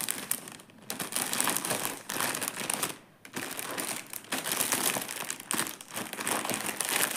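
Clear plastic bag crinkling as hands stuff skeins of embroidery floss into it and press it flat. It comes in two stretches, with a short pause about three seconds in.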